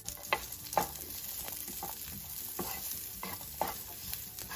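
Diced Chinese sausage (lap cheong) and Chinese bacon (lap yok) sizzling gently in a nonstick skillet as their fat renders, with a wooden spoon stirring and scraping the pan in several short strokes.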